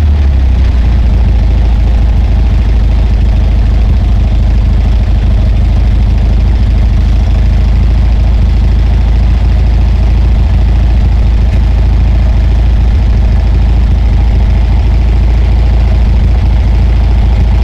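Polski Fiat 126p's air-cooled two-cylinder engine idling steadily through a Polski Fiat 125p exhaust, heard close at the tailpipe.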